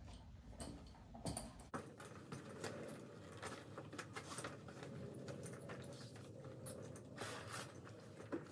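Quiet, irregular clicking, tapping and rustling of a western saddle's leather straps and buckles being handled as the saddle is set and cinched on a horse.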